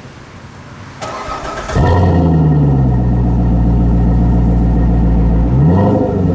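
Chevrolet Corvette C7 Stingray Z51's 6.2-litre V8 with a Flowmaster performance exhaust being started. The starter cranks about a second in, the engine fires with a loud flare of revs, then settles into a steady idle. Near the end the revs rise briefly and drop back.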